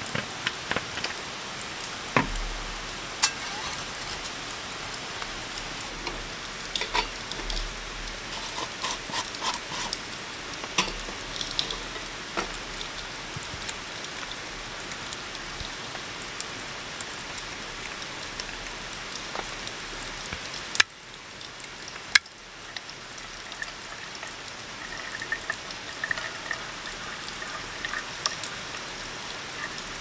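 Steady rain falling, with scattered light clicks and knocks of camp cookware and a fuel bottle being handled; two sharper knocks come about two-thirds of the way through.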